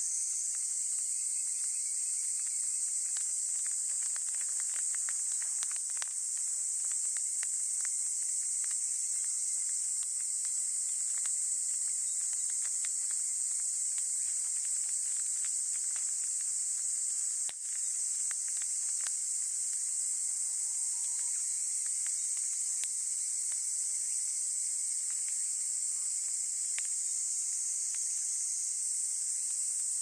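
Steady high-pitched chorus of insects, with scattered small crackles and pops from a smouldering fire of dry grass, dead leaves and twigs.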